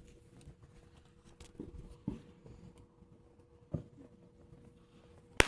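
Fireworks in a lull: a few faint pops, then one sharp, loud firework bang near the end.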